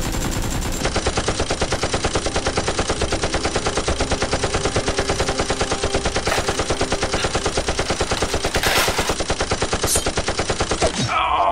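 Automatic gunfire sound effect: a long, unbroken burst of rapid, evenly spaced shots that breaks off near the end.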